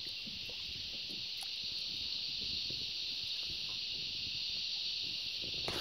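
Steady high-pitched drone of an insect chorus, with faint low rustling underneath.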